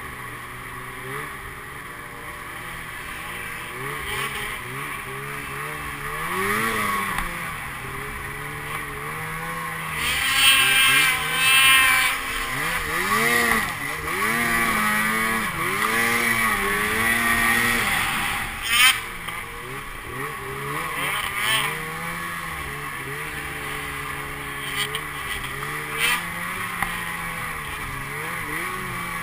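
Snowmobile engine running under throttle, its pitch rising and falling in repeated revving surges as the rider speeds up and eases off, over the hiss of the track in the snow. A couple of sharp knocks in the second half.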